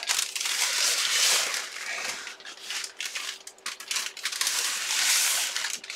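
A black bag and the packaging being shoved into it rustling and crinkling in irregular bursts.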